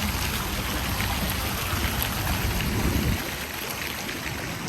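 Park water fountain splashing steadily, under a low rumble that drops away about three seconds in.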